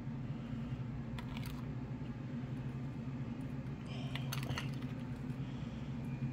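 A metal spoon clinking and scraping against a ceramic bowl a few times as a thick topping is scooped out, over a steady low hum.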